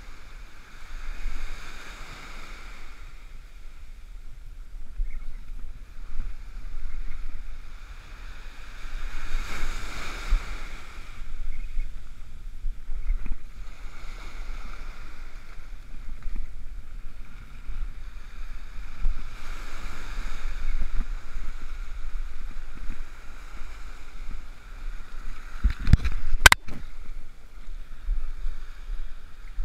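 Surf washing in and out over the sand in slow surges, with a low wind rumble on the microphone. One sharp knock, the loudest sound, comes near the end.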